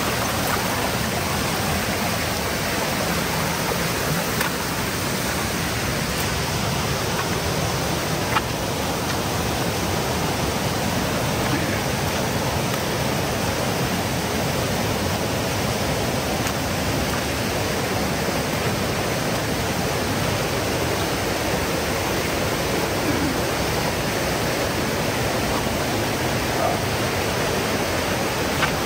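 Loud, steady rush of water.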